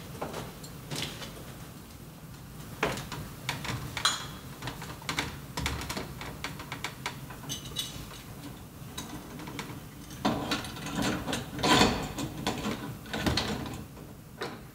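Scattered metallic clicks, clinks and rattles of weatherhead hardware being handled and fitted onto the top of a steel service mast, with a denser, louder run of clanks about ten seconds in.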